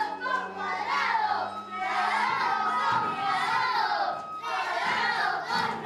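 A group of young voices shouting and yelling all at once, a crowd-like din of overlapping cries with no clear words.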